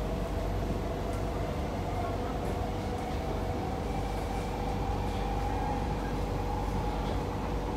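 Cabin noise of a Kawasaki–CSR Qingdao Sifang C151A MRT train under way: a steady rumble of wheels on the track with the traction motors' whine slowly rising in pitch as the train gathers speed.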